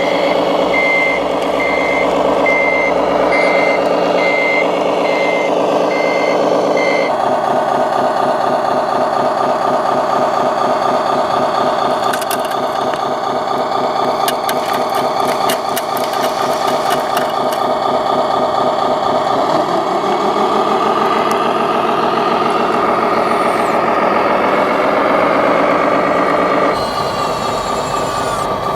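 Radio-controlled model truck running with its simulated diesel engine sound and a regular reversing beeper for about the first seven seconds. After that the engine sound carries on alone, with a run of sharp clicks in the middle and a rise in pitch about twenty seconds in as it revs up.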